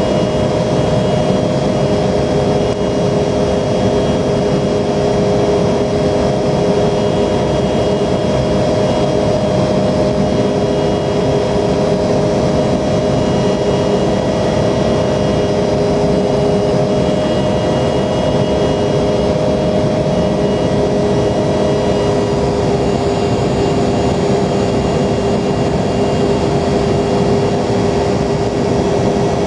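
Embraer 170's twin GE CF34 turbofan engines running steadily at high power in a sustained climb, a loud constant rush with several steady tones over it.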